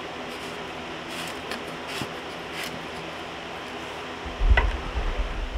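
Faint scrapes and clicks of a slit steel beer can being pushed by hand onto a car's exhaust tailpipe, over a steady low hum. Near the end comes a louder low rumble with a single knock.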